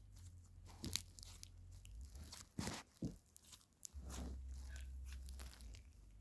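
Slime being played with by hand, giving irregular crunching and crackling sounds.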